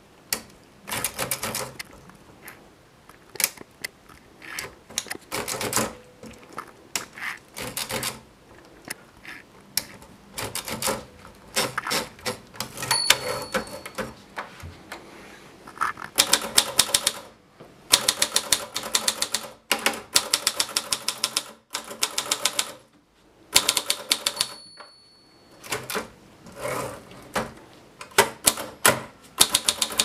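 Monpti portable typewriter being typed on: runs of sharp key and typebar strikes with short pauses between them. A short ring, the end-of-line margin bell, sounds twice.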